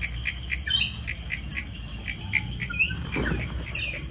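A small bird chirping rapidly and repeatedly, short high chirps several times a second, over a low steady rumble.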